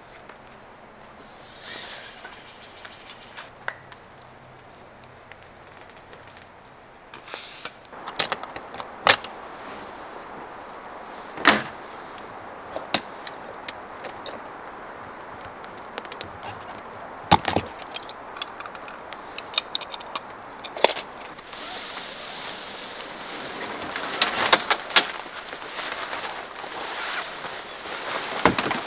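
Outdoor camp gear being handled while packing up: scattered sharp clicks and knocks. Near the end comes a longer, louder stretch of fabric rustling as a tent is pushed into a car's cargo area.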